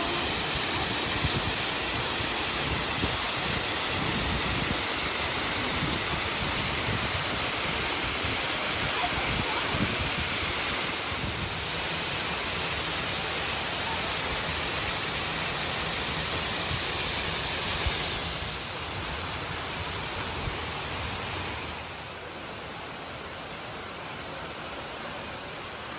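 Steady rush of falling water, like a waterfall, filling the sound with an even hiss. It drops quieter about two-thirds of the way through and again a few seconds later.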